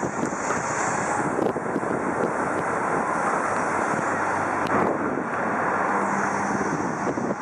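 Steady rushing noise of road traffic crossing the bridge, mixed with wind on the microphone, with a few faint clicks.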